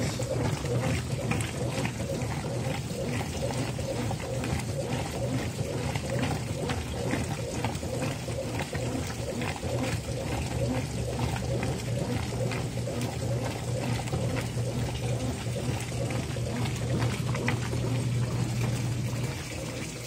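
Top-load washing machine agitating a soapy load: a steady motor hum under continuous sloshing and splashing of water, with other washers running alongside.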